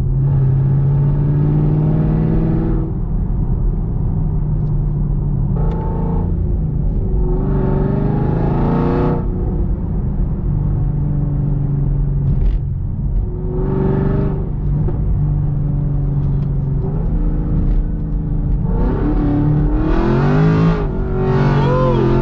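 A modified Camaro SS V8 with Kooks headers and a Borla ATAK exhaust, heard from inside the cabin. It cruises with a steady drone and climbs in pitch several times as it accelerates, with a harder pull near the end.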